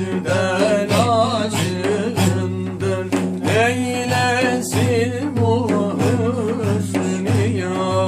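A man singing a Turkish Sufi ilahi solo in a wavering, richly ornamented voice, over a steady low pulsing drone.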